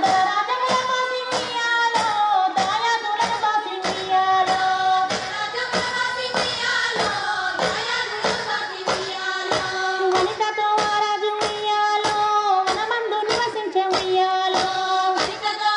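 Telugu Bathukamma folk song: female and children's voices singing a melody over a steady clapping beat, about two beats a second.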